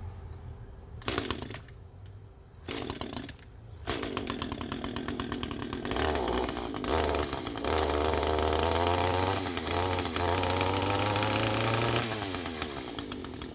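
Echo PAS 225 string trimmer's two-stroke engine cold-started after sitting about two months. Two brief bursts on the pull-start fail to keep it running, then it catches about four seconds in and keeps running. It revs up and down from about six to twelve seconds, then eases back toward idle.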